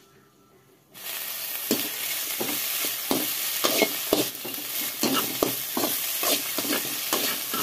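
Halved cluster figs sizzling as they fry in a little oil in a metal pan, stirred with a metal spatula that scrapes the pan about twice a second. The sizzling starts suddenly about a second in.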